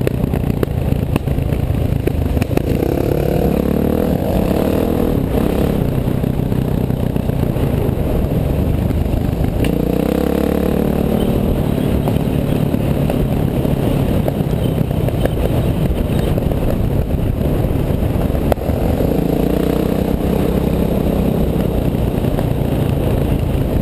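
An engine running hard and revving up several times, with clattering and scraping over it.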